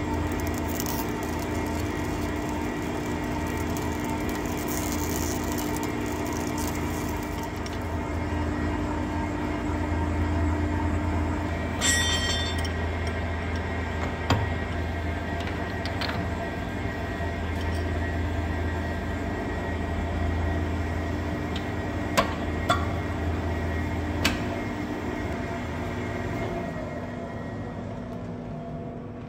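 Hafco TM-26120G centre lathe running steadily while a centre drill in the tailstock drill chuck cuts a centre hole in the steel end of a hydraulic cylinder barrel. About twelve seconds in there is a metallic clank, with a few sharp knocks later on as the drill chuck is swapped for a live centre, and the hum eases off near the end.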